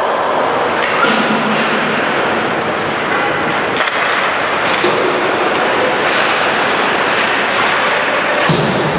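Steady din of an ice hockey game in an arena: skates scraping on the ice and spectators' voices blend into a continuous noise, with a few sharp knocks of sticks and puck.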